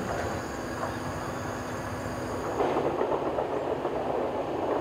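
Train noise on rails: a steady rolling rumble that gets louder and rougher about two and a half seconds in.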